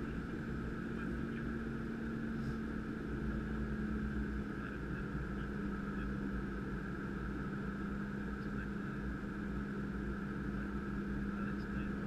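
Steady flight-deck noise of a Gulfstream G550 business jet in flight: an even rush and hum with a constant low tone, unchanging throughout.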